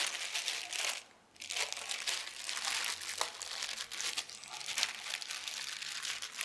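Clear plastic wrapping crinkling as it is worked off a long plastic antenna element by hand, with a short pause about a second in.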